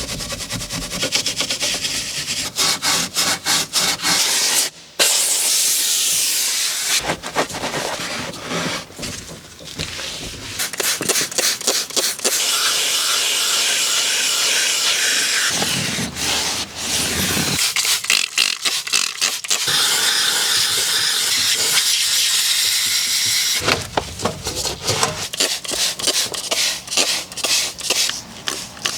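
Car-detailing work in quick cuts: a hand brush scrubbing in rapid strokes, alternating with long stretches of steady hissing spray.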